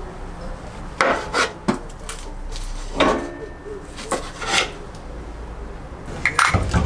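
Objects being handled and set down on a hard surface: a few sharp knocks with scraping and rubbing between them, and a quick cluster of knocks near the end.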